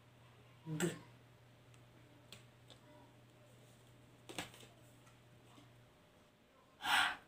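A few faint clicks over a low steady hum that stops near the end. Then one short, breathy puff of voiceless air, a woman sounding the letter H as in Cebuano (Sinugbuanong Bisaya) phonics, made just by pushing out breath.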